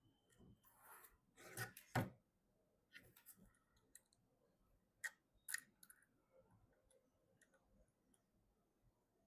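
Scattered clicks and light knocks of PC hardware being handled during assembly, with a louder cluster of knocks about two seconds in and two sharp clicks near the middle.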